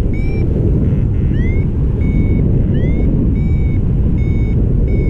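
Steady wind rush over the microphone in flight, the loudest sound, with a paragliding variometer sounding its climb tone: short high beeps repeating somewhat under a second apart, some sliding upward. The beeping signals the glider is rising in lift.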